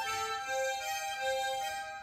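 Tremolo harmonica playing a slow melody: one note held through most of the moment while lower notes change about every half second.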